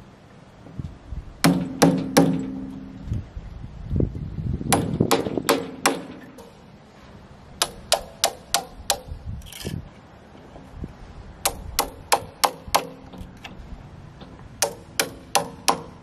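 Hammer driving nails into a timber beam at its joint with a post: runs of sharp blows, about four a second, some with a short ring.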